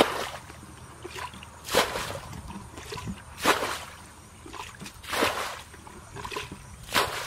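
Muddy water being scooped with a plastic bucket and flung out, making five splashes at a steady pace of about one every second and three-quarters.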